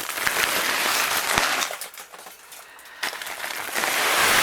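Snow sliding off a greenhouse roof as it is pushed from inside: a long rushing hiss for the first second and a half, then a second slide starting about three seconds in and carrying on.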